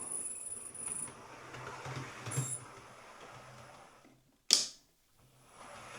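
Model HST locomotive's electric motor running with a thin, steady high-pitched whistle, the squeal that lubricating the gears has not cured, which the owner puts down to a faulty motor. The running fades off, a single sharp click comes about four and a half seconds in, and the motor starts up again quietly near the end.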